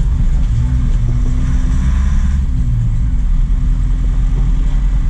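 Truck engine running steadily under way, a low hum with road noise; a brief rush of noise swells and fades about two seconds in.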